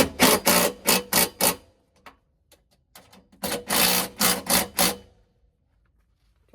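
Hand ratchet wrench clicking in quick strokes, about four clicks a second, as bolts on the step rail mounting brackets are tightened down; one run of clicks, a pause, then a second run.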